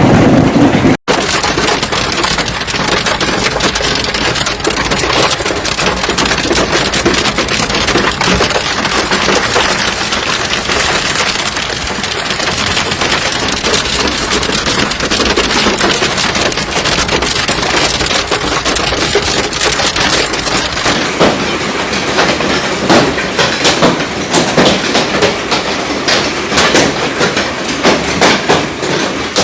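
Hailstones pelting hard surfaces: a dense, loud clatter of impacts, with sharper, louder single hits standing out from about twenty seconds in. The sound drops out briefly about a second in.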